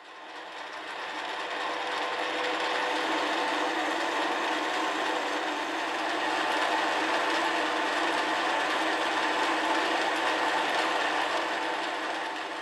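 TV-4 lathe running with a steady mechanical whir of its motor and gears. It fades in over the first couple of seconds and starts to fade out near the end.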